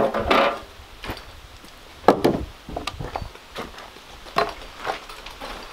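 A handsaw's last stroke through a wooden board at the start, then a few sharp wooden knocks and clatters as the boards are handled. The loudest knock comes about two seconds in and another near four and a half seconds.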